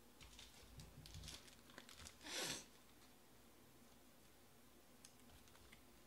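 Faint crinkling and small clicks of plastic card sleeves being handled, with one brief, louder swish a little over two seconds in as a card is slid into a sleeve.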